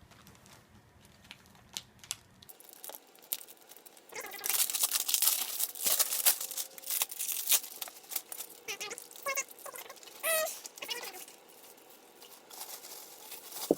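Plastic packaging being handled and pulled off a scooter deck, crinkling and tearing in a dense spell after a quiet start, with a few short squeaks of plastic rubbing near the middle.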